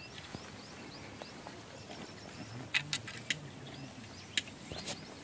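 Quiet outdoor ambience: small birds chirping faintly and repeatedly, with a few sharp clicks in the second half.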